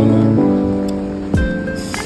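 Background music: sustained melodic notes that change every half second or so, with a low thump about one and a half seconds in.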